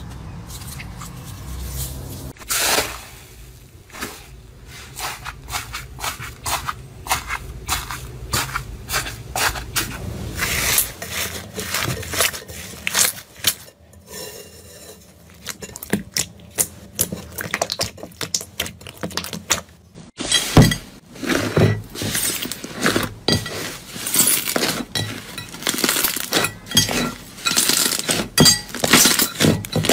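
Slime being squeezed and pressed by hand, giving a rapid, irregular run of sharp crackles, pops and clicks. The crackling grows denser and louder for the last third.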